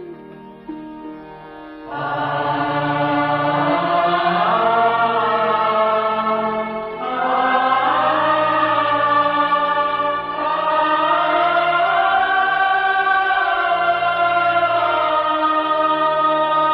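Devotional Indian music: a chanted vocal line of long, slowly gliding held notes over a steady drone, coming in about two seconds in after a quieter instrumental opening.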